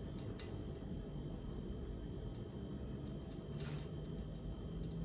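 Quiet room tone: a steady low hum with a few faint light taps.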